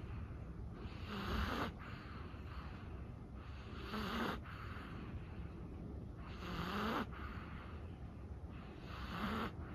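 A sleeping chihuahua snoring softly, four slow, even breaths about two and a half seconds apart.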